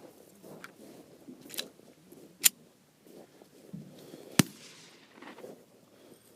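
9mm handgun firing 124-grain Federal HST standard-pressure rounds: two sharp cracks about two seconds apart, the second followed by a short ring.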